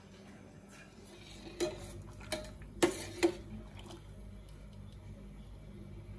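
Steel spoon stirring macaroni in a steel pot of water, knocking against the pot: several sharp metallic clinks, the loudest around three seconds in.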